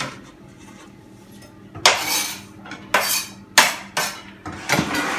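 A chef's knife scraping and clattering diced carrot off a plastic cutting board onto a plate. About two seconds in come four or five sharp clatters and scrapes.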